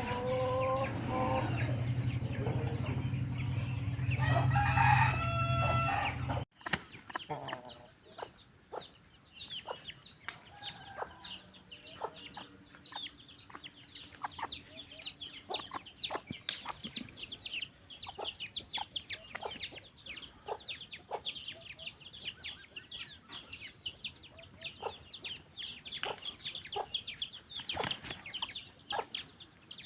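Aseel chickens calling: a rooster crows over a steady low hum in the first few seconds. After a sudden cut, a long run of quick, high, falling chirps follows, several a second, with a faint steady high whine behind them.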